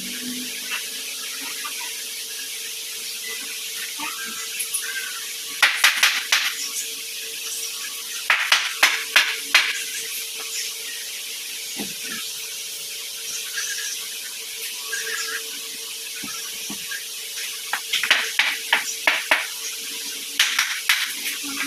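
Four bursts of quick, sharp knocks, several to a burst, over a steady hiss and a faint steady hum.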